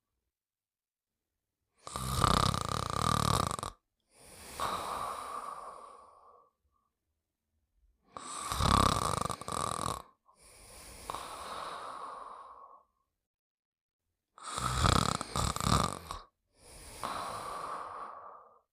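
Cartoon character snoring in three slow cycles about six seconds apart. Each cycle is a loud, rough snore followed by a quieter, longer breath out.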